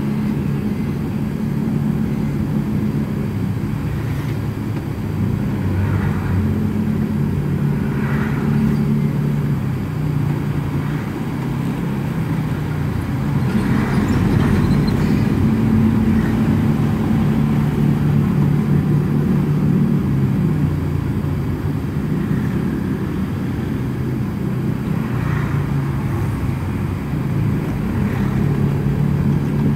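Car engine and road noise heard from inside the cabin while driving: a steady low hum that steps up and down in pitch as the car changes speed.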